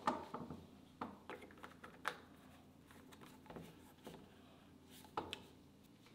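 Light, irregular clicks and knocks of kitchenware being handled: several close together in the first two seconds, then a few scattered ones.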